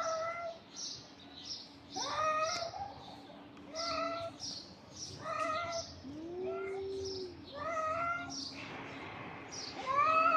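Two stray cats in a standoff, yowling: drawn-out caterwauls that rise and then hold, repeating about every one and a half to two seconds. About six seconds in there is a lower, longer moaning call. These are the warning yowls of a cat confrontation just short of a fight.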